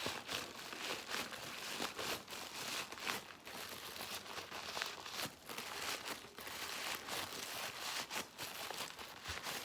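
Paper crinkling and rustling as a taped paper squishy is handled and pressed, a steady run of irregular crackles.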